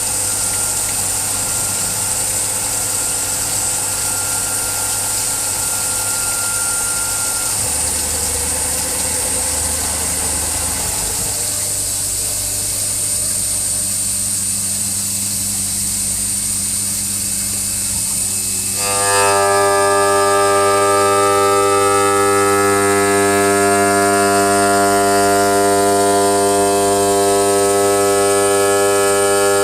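Machine motors on a CNC stone cutting and polishing machine running with a steady electric hum. About two-thirds of the way through, a louder whine made of several steady tones starts abruptly and holds.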